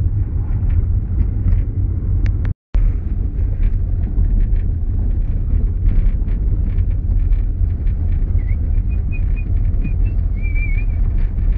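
Steady low rumble of a car's engine and road noise heard from inside the cabin while driving, with some wind noise on the microphone. The sound cuts out completely for a moment about two and a half seconds in.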